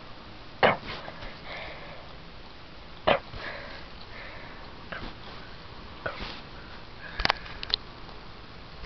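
A Lhasa Apso sniffing and huffing in several short, sharp bursts, the strongest two about half a second and three seconds in, then a few smaller ones near the end.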